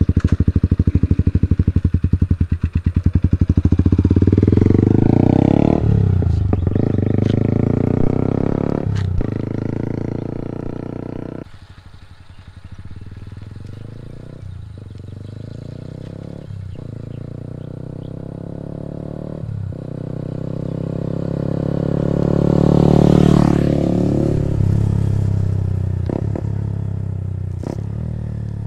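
Yamaha XSR 155's single-cylinder engine through an SC Project CRT aftermarket exhaust, pulling away close to the microphone with brief breaks at the gear changes, then fading into the distance. About two thirds of the way in it comes back and passes by at a moderate pace, the exhaust note rising as it nears and dropping in pitch as it goes away.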